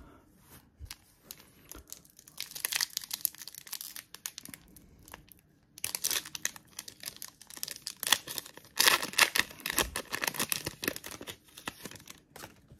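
Trading card pack wrapper being torn open and crinkled by hand, in two spells of crackling, the second longer and louder.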